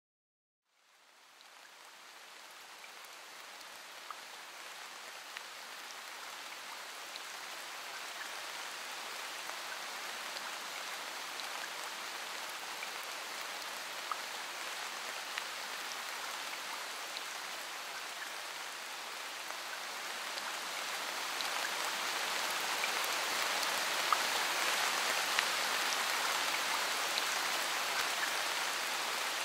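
Steady hiss of falling water like rain, with scattered sharp drip ticks. It fades in about a second in and slowly grows louder.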